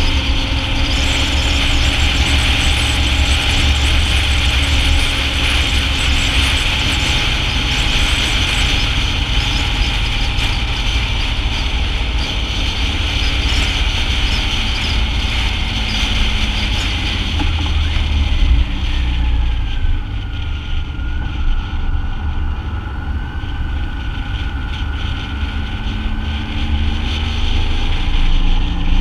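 BMW motorcycle engine running at road speed under a steady rush of wind on the bike-mounted camera's microphone. The engine note falls a little just past the middle.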